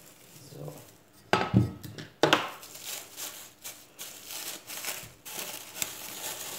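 A few sharp knocks on the worktop about a second and a half in, then plastic cling film crinkling and rustling as the chilled dough is unwrapped by hand.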